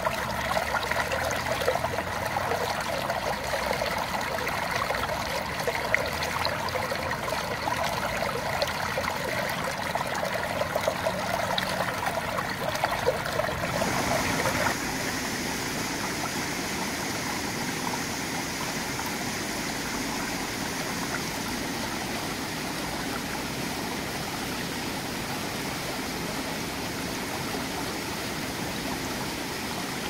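Water of a shallow, rocky stream running over stones. For about the first fourteen seconds it is a close, splashy gurgle. After that it changes to a smoother, steadier rush.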